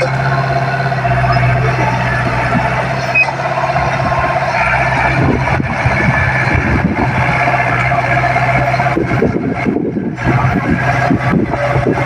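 Diesel engine of a Komatsu D20P mini bulldozer running steadily under load while it pushes dirt, with irregular clanking and rattling joining in about halfway through.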